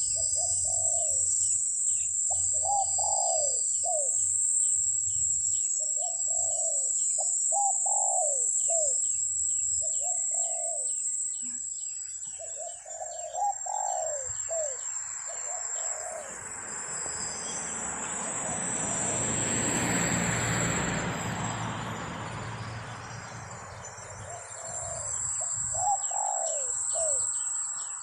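Zebra doves cooing in repeated rolling phrases, with brief pauses. Insects keep up a high buzz and a fast ticking throughout. A broad rushing noise swells and fades through the middle, while the cooing drops out and then returns near the end.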